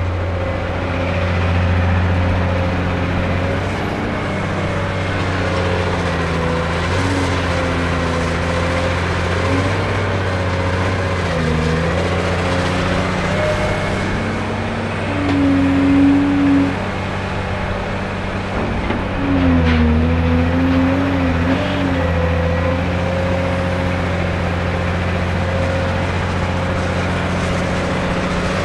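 Cat 385C LME large excavator at work: its C18 diesel engine runs steadily under load. Past the middle the sound gets louder twice for a second or two, a few seconds apart, with a higher tone riding on top.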